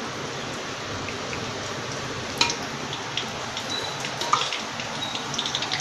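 Cooking oil heating in a kadhai over a gas flame: a steady hiss with two faint ticks, the oil nearly hot enough for frying spices.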